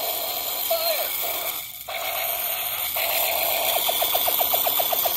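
Light-up toy pistol's electronic sound chip playing its firing effect: a warbling, pulsing tone in repeated bursts, with a short break about two seconds in, turning to a fast stutter of about ten pulses a second near the end.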